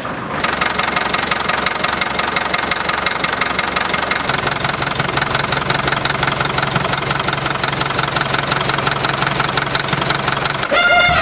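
Csepel D-352 fire truck's diesel engine running just after a cold start, with a rapid, even clatter of firing strokes. Music comes in near the end.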